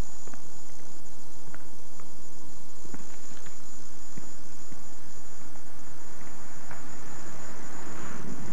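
Scattered light ticks and taps over a steady hiss and a constant high whine from an old camcorder recording. A rushing noise swells near the end.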